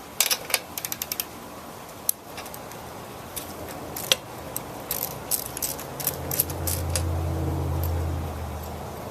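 Light metal clinks and clicks of hand tools, a quick run of them at the start and more scattered ones midway, as work on the mower's spark plug begins. A low steady hum comes in about six seconds in.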